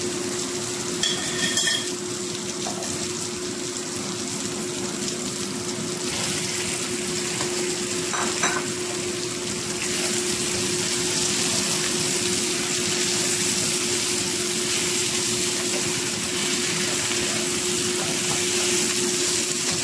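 Chicken and potato chunks sizzling as they fry in a wok, louder from about ten seconds in, with a spatula stirring and knocking against the pan. A steady low hum runs underneath.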